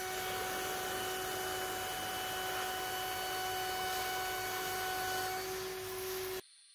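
High-speed CNC router spindle, a 3.2 kW 24,000 rpm Jianken unit, running with a steady high-pitched whine over a hiss. It stops abruptly near the end.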